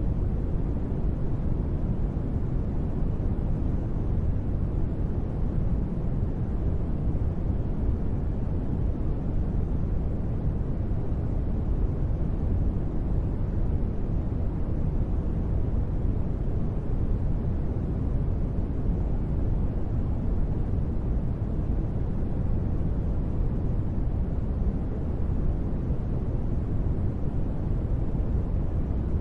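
Steady, deep rumbling noise, heavy in the bass with little treble and no change over time: a continuous noise bed for sleep or relaxation.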